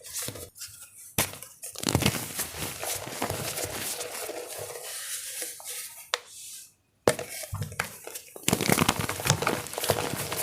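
Wet gym chalk being crushed and squished as a paste, with dense crackling and crunching. There are abrupt cuts and a brief silent gap about two-thirds of the way through.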